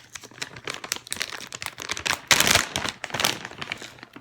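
Bag of cheese crinkling and rustling as it is handled, with a louder rustle about two and a half seconds in.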